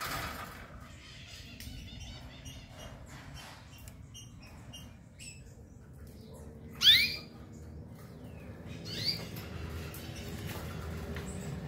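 Pet canaries calling in a cage: faint short high cheeps, then one loud sharp call about seven seconds in and a softer one about two seconds later, over a steady low hum.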